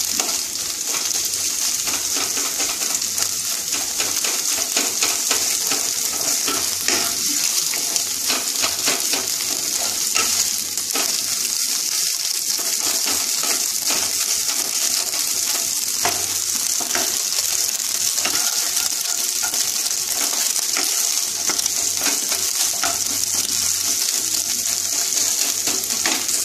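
Beaten eggs sizzling in hot vegetable oil in a nonstick kadai, with a steady hiss, while a wooden spatula stirs and breaks them into small scrambled bits, giving many light scrapes and taps on the pan.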